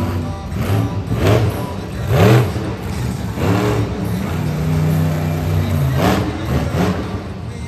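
Monster truck engine revving hard several times as the truck drives and turns, each rev rising and then falling in pitch, with a steadier run of the engine in between.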